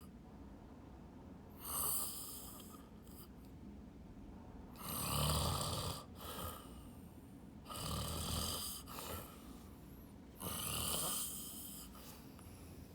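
Snoring: four snores, each about a second long, coming roughly every three seconds.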